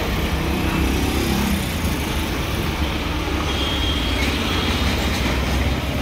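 Steady motor-vehicle and road noise with a deep, constant rumble.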